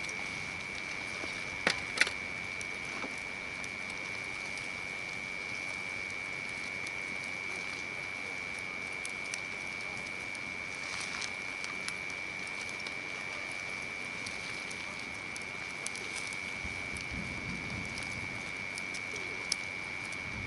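Hardwood campfire burning with faint crackling and a few sharp pops, two close together about two seconds in and one near the end, over a steady high-pitched tone.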